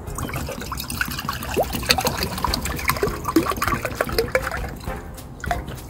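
Coffee being poured into a cup, with gurgling, splashing and small knocks.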